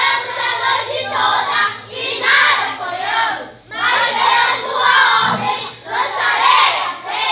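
A group of children singing and shouting together loudly in short phrases about a second long, many voices overlapping.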